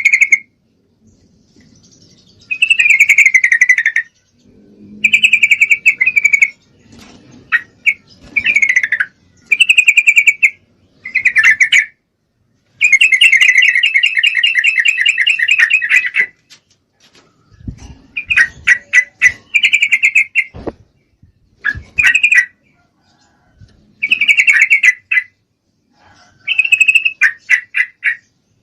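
Yellow-vented bulbul (trucukan) calls, presented as a female calling males in breeding condition: loud, bubbly phrases about a second long, repeated with short pauses, with a longer rapid trill near the middle.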